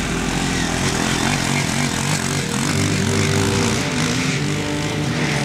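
Four-stroke dirt bike engine being ridden on a motocross track, its pitch repeatedly rising and falling as the rider opens and closes the throttle through the jumps and turns.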